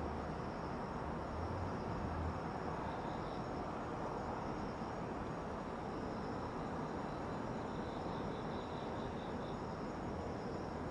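Night insects, crickets, chirping faintly in short pulsing trills over a steady hiss of distant town noise, with a low rumble that fades about two seconds in.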